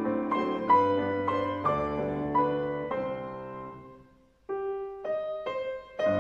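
Grand piano played four hands: chords over a low bass line. The sound dies away to a brief near-silent pause about four seconds in, then a few separate notes sound before the full playing returns near the end.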